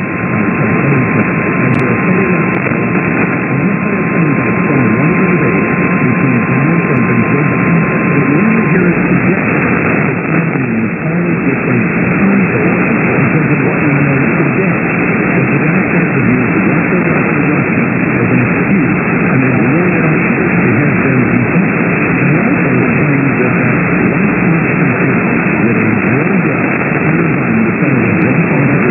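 Radio static: a steady hiss from a radio receiver with no clear signal, with a faint steady whistle for about the first nine seconds.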